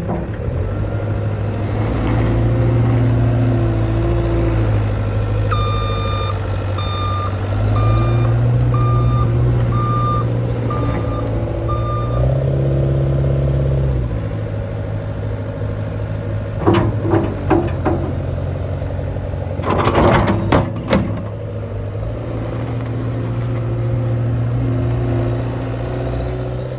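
CAT 262C skid steer loader's diesel engine running as it drives and works the loader, its pitch stepping up and down. A back-up alarm beeps about eight times in a row from roughly six seconds in, and a few sharp clanks and knocks come about two-thirds of the way through.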